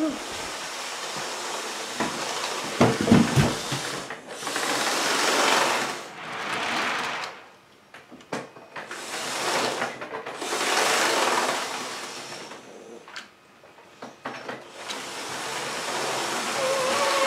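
HO scale model locomotive running on the track: its small electric motor whirs and the wheels click over the rail, the sound swelling and fading several times and dropping almost away twice.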